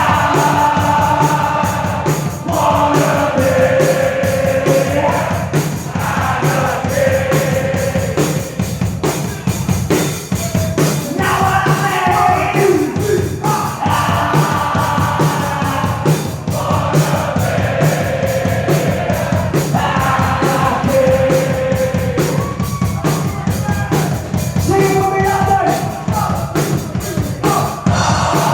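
Punk rock song playing: a band with drums under a shouted, sung vocal line.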